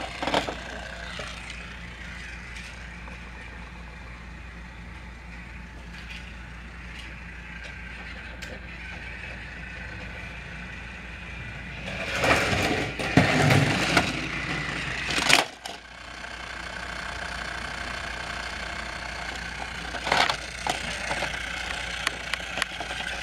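Battery-powered Trackmaster toy train set running with a steady motor whir. Louder bursts of clattering noise come about halfway through and again near the end.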